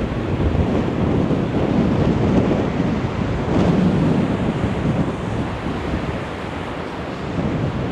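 Strong gale-force wind buffeting the microphone: a loud, steady, low rumble of noise that swells and eases with the gusts.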